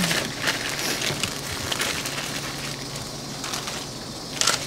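Clear plastic zip-top bag crinkling as it is handled, with irregular crackles and one louder crinkle near the end.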